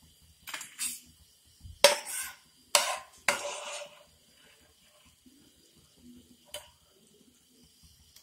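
Perforated steel skimmer clanking against a frying pan and a steel plate as fried bread cubes are scooped out of oil and tipped onto the plate: several sharp metal knocks, the loudest about two seconds in, then a short scraping clatter, and one lighter knock later on.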